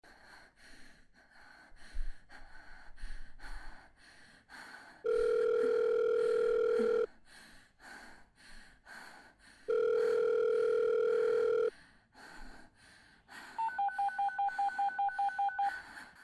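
A telephone line tone sounds twice, each a steady two-second tone with a gap between, then near the end comes a quick run of phone keypad beeps, as a number is dialled. Faint irregular knocks fill the quieter stretches.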